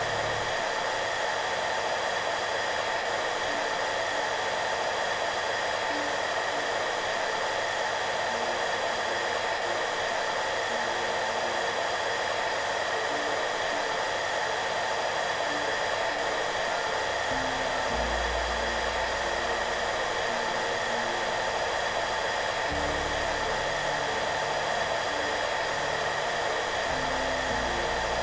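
Hairdryer running steadily: an even rushing noise with a faint whine, unchanging throughout. Soft low music notes play quietly underneath.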